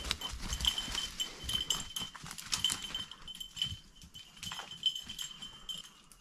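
A bird dog's collar bell jingling irregularly as the dog moves through the cover, fading somewhat about halfway through, over the crackle of brush and dry leaves being walked through.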